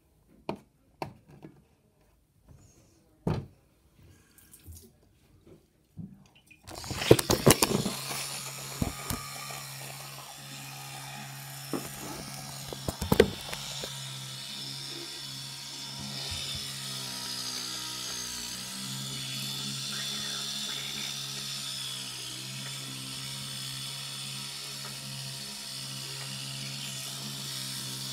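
A few scattered clicks and taps, then about seven seconds in an electric toothbrush switches on and runs with a steady buzz while brushing teeth. There are a few sharp knocks soon after it starts and again around the middle.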